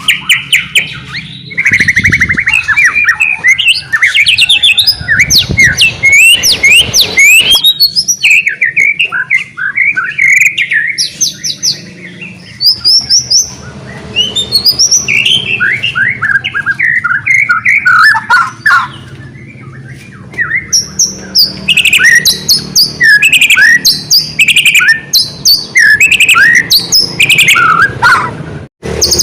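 White-rumped shama (murai batu) singing continuously and loudly in a long, varied run of rapid whistles, chirps, sweeping notes and trills, broken only by short pauses. This is the full, energetic 'gacor' song of a bird in top singing form.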